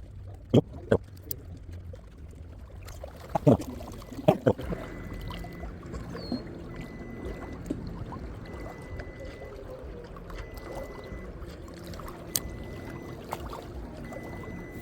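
Boat motor running steadily with a low hum, with several sharp knocks in the first few seconds.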